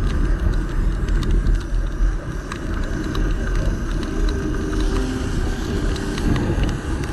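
Motorcycle on the move: wind buffeting the rider's microphone over the running engine, a steady deep rumble.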